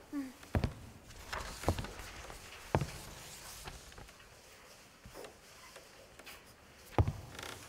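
Slow, measured footsteps on a wooden floor, about one step a second, fainter in the middle and loud again near the end. A short rustle just before the end.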